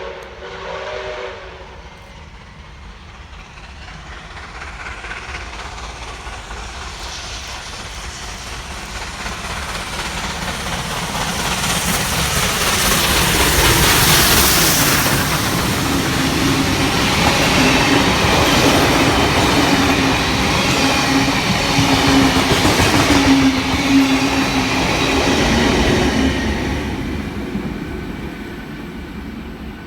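A train sounds a signal of several tones at once, which ends about a second in. Then a train approaches and passes, its noise building to a loud peak through the middle and easing off near the end, with a low steady tone that comes and goes during the loudest part.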